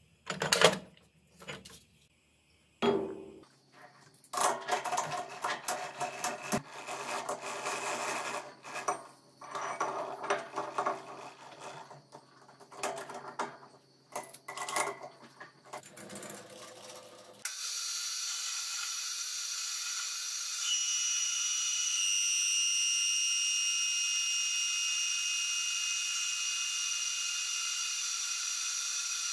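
Steel bars clanking and rattling as they are handled in a wooden crate, then a lathe chuck being tightened with its key. The metal lathe then runs steadily as the tool turns a rusty steel rod bright, with a high, steady whine coming in about two-thirds of the way through.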